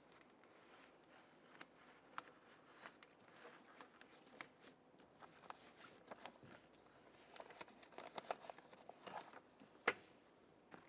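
Faint crinkling and light clicks of a plastic door water shield being handled and fitted, with one sharper click near the end.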